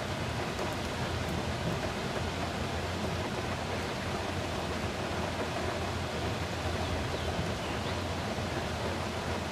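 Steady rumble and hiss of a long freight train of tank cars rolling past, mixed with rain, heard from inside a car.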